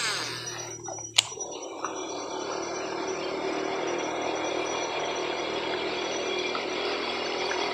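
Shimano SLX baitcasting reel: a short whir of the spool as the lure is cast, a sharp click about a second in, then the reel wound steadily as the lure is retrieved.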